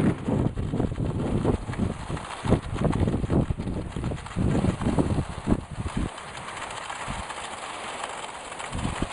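Skis and a dog-drawn pulka sled gliding over a packed snow trail, with irregular crunching and scraping that quietens about six seconds in.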